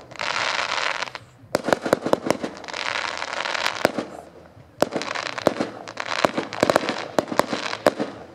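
Aerial fireworks display: clusters of sharp bangs from bursting shells, alternating with stretches of hissing crackle from the glittering stars.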